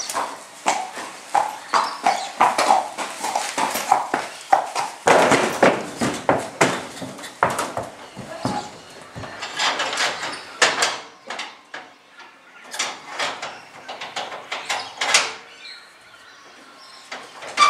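A horse's hooves clip-clopping on concrete, then heavier knocks and thuds from about five seconds in as it walks up the ramp into a horse float. Scattered knocks follow as the horse settles inside the float.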